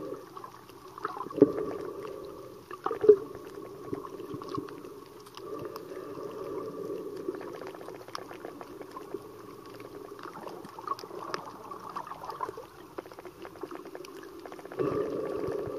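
Underwater sound picked up by a camera held below the surface: a muffled, steady gurgling and sloshing of water with faint crackle, and two sharp clicks about a second and a half and three seconds in.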